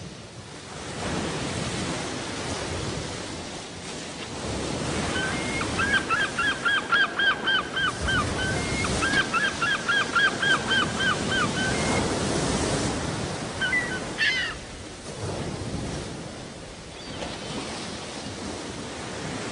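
Wind and choppy loch water rushing and splashing around an inflatable canoe, heard as rough, uneven noise. In the middle come two runs of quick, evenly repeated high calls, about six a second, and a little later a single call that rises and falls.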